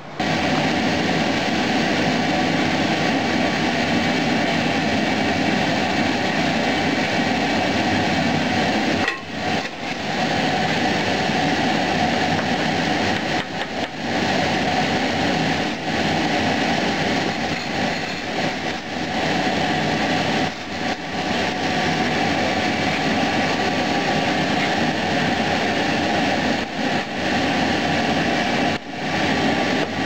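Propane furnace burner and its electric air blower running with a steady, even roar, with a few brief dips in level.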